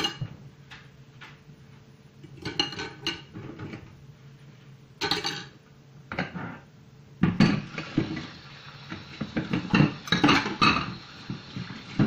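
Dishes and cutlery clattering and clinking in a kitchen sink while being washed up by hand: scattered knocks at first, then denser clinking in the second half.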